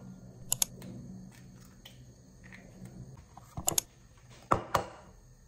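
Kitchen bowls and other items being handled on a counter: a few sharp knocks and clicks, mostly in close pairs, over a low steady hum.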